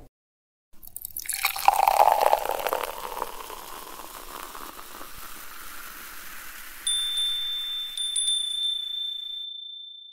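Beer poured into a glass: a fizzing, splashing rush that tapers into the fine crackle of settling foam. About seven seconds in, a small chime rings with one clear high tone, struck again about a second later and ringing on.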